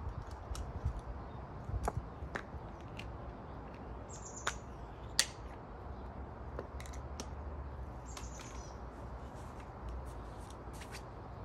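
Small clicks and taps of painting supplies (brushes, a metal clip, a palette tin) being handled and set out in a case, the sharpest click about five seconds in. A bird chirps twice over a low steady rumble.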